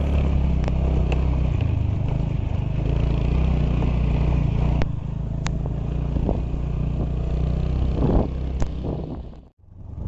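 Motorcycle engine running at low speed on a rough gravel road, with a steady low drone and occasional sharp clicks and clatter. The sound cuts out abruptly near the end.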